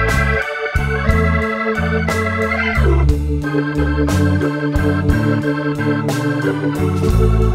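Instrumental blues backing music: Hammond-style organ chords over a bass line that steps from note to note, with regular drum hits and a note that slides down about a third of the way in.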